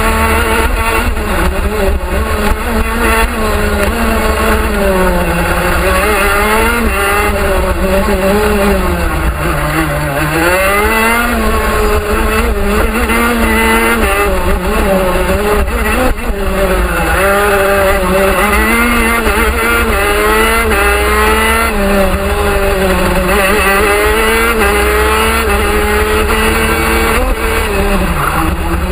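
The TM 125cc two-stroke engine of a racing shifter kart at race pace, heard onboard. Its pitch climbs as it accelerates and drops under braking, falling low about ten seconds in and again near the end.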